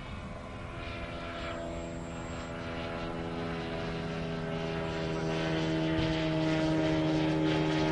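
Engine and propeller of a radio-controlled scale Zero fighter running steadily in flight, a droning hum that grows louder as the plane comes closer overhead.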